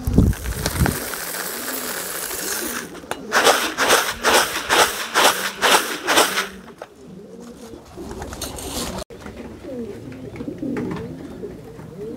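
Domestic pigeons cooing repeatedly in their loft. A low thump at the start, and a quick run of about seven sharp, noisy strokes in the middle.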